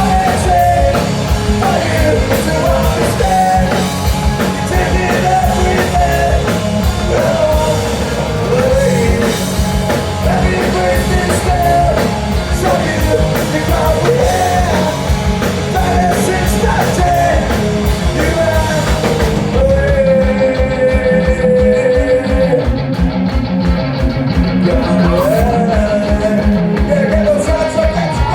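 Rock band playing loud music, electric guitars and drums, with a sung lead vocal line. About twenty seconds in, the bright cymbal top end drops away while the low beat and the vocal carry on.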